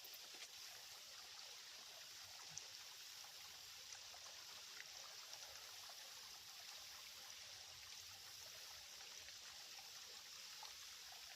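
Faint, steady trickle of a shallow creek's water, with a few small clicks.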